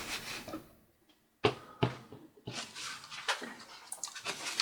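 Clicks and scraping from hands working a laptop's plastic and metal parts at the hinge while screws are being removed: a brief rustle, two sharp clicks, then a longer rough scraping with small ticks.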